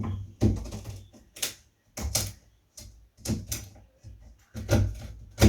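Wood chisel being tapped into the edge of a door, a string of sharp, irregular knocks, taking out a little more wood so the latch and its plate sit flush in their recess.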